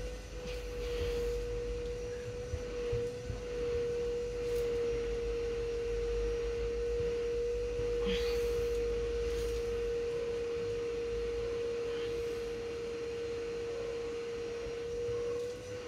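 A steady, pure mid-pitched electronic tone, held without a break and wavering only slightly in pitch.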